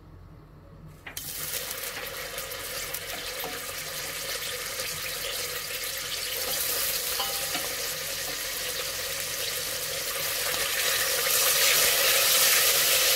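Pieces of wet, freshly boiled lamb sizzling in hot olive oil in a stainless steel pot. The sizzle starts suddenly about a second in as the meat goes in, and grows louder near the end as the pieces are stirred with a wooden spoon.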